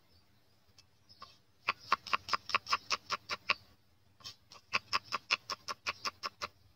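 Kitchen knife slicing garlic cloves on a thick wooden chopping block: quick, even chops of about six a second, in two runs with a short pause between them.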